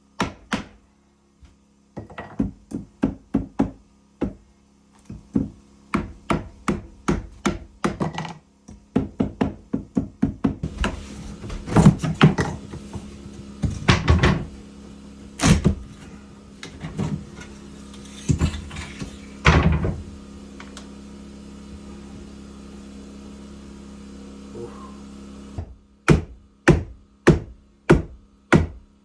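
Hammer blows on wood, struck in quick runs of two or three a second with short pauses, with a steady low hum under most of it.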